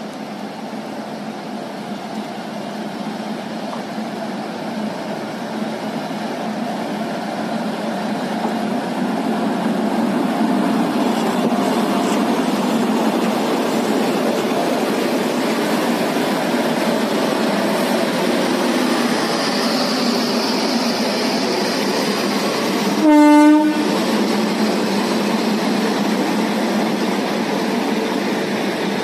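WAP-7 electric locomotive running past close by, its running noise growing louder over the first ten seconds or so and then holding. About 23 seconds in comes one short, loud horn blast.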